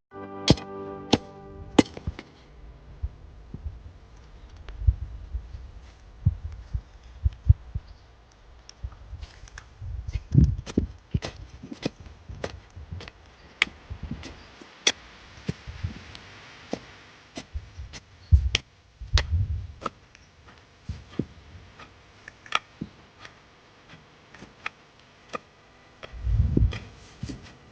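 Jembe hand hoe chopping and scraping into stony soil: many sharp, irregular strikes where the blade hits stones, mixed with duller thuds of the blade digging in. The ground is rocky.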